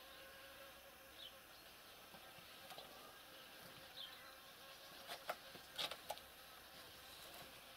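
Near silence: faint outdoor ambience with a steady low hum, a few brief high chirps, and a short cluster of soft clicks a little past halfway.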